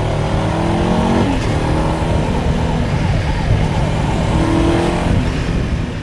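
A car engine revving, its pitch sweeping up and down several times over a steady low drone.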